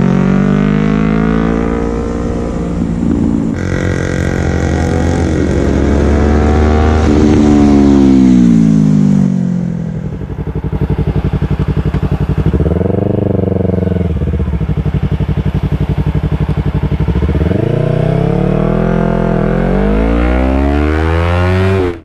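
Yamaha R3 321 cc parallel-twin engine through an Akrapovic exhaust, revving up and back down several times with spells of idle in between: a long climb and fall in the first half, a short blip about thirteen seconds in, and a climb near the end.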